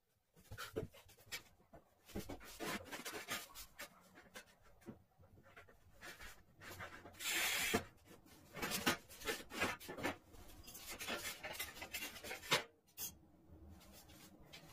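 Scratching, rubbing and clicking from tile work: a marker scratched across a porcelain tile, and a manual tile cutter's scoring wheel drawn along the tile in a hiss of under a second about halfway through.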